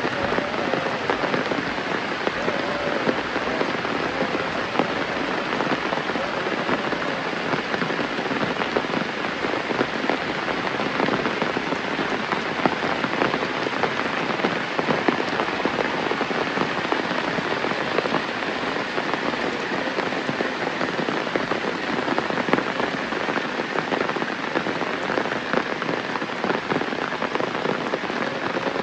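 Steady rain with a dense patter of individual drops hitting surfaces.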